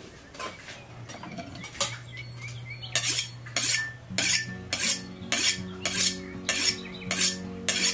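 Cleaver blade being honed on a honing steel: a few metal clinks as the tools are picked up, then about nine quick scraping strokes, a little under two a second, starting about three seconds in.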